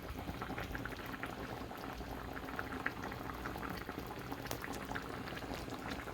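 Bottle gourd, potato and chicken curry bubbling in the pot as it cooks, a steady scatter of small irregular pops.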